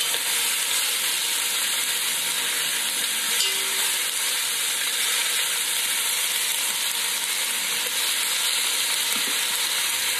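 Beef chunks and onions sizzling steadily as they sear in hot oil in a pot, while more meat is laid in with tongs.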